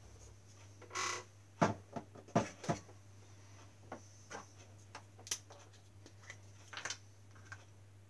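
Small clicks and knocks of paint pots and a brush being handled on a paint palette while paint is mixed. A brief rustle comes about a second in, a few sharper knocks follow, then scattered light ticks, all over a low steady hum.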